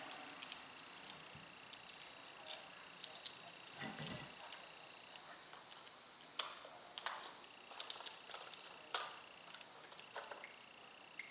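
Scattered faint clicks and small taps of a red dot sight's mount being handled and screwed down on a Picatinny rail, one sharper click about six and a half seconds in.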